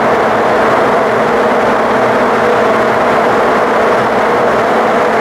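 MTR metro train running at speed through a tunnel: a loud, steady rumble of wheels on rails and running gear.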